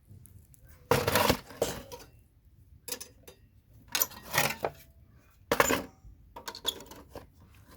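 CPU sockets being pried off scrap motherboards: cracking, with metal clinking and clattering in three main bursts and smaller clicks between them.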